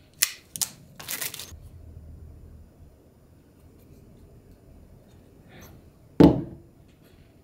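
Cardboard product box being handled: a few short rustling scrapes in the first second and a half as the box is pulled open, then one thump about six seconds in as it is set down on the desk mat.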